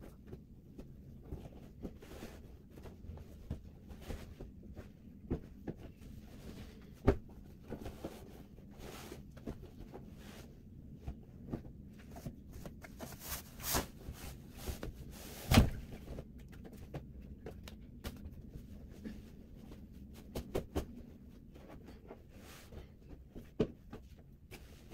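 Bed sheets and pillowcases being stripped off a bed: fabric rustling and handling noises, with a few sharp knocks, the loudest a little past the middle.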